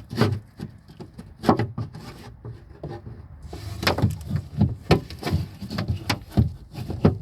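Irregular knocks, clicks and scraping as a car door lock mechanism is twisted and fitted into place in the door, with a short lull between two and three seconds in.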